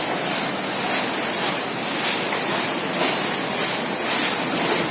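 Steady rushing and lapping of water around a small rowing boat as it moves along a canal, rising and falling slightly about once a second.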